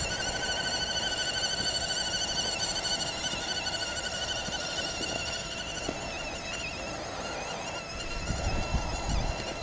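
Electric motors and gears of RC scale crawler trucks whining steadily, the pitch wavering as the throttle changes while they climb a dirt trail. A low rumble comes in near the end.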